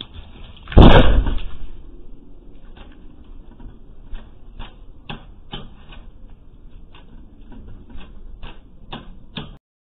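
A loud thump about a second in, dying away quickly, followed by a string of light, uneven knocks or taps. The sound cuts off near the end.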